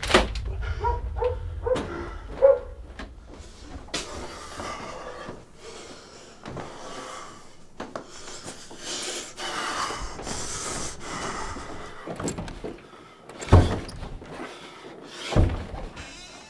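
A man breathing heavily in distress, with two heavy thumps on a door about 13 and 15 seconds in.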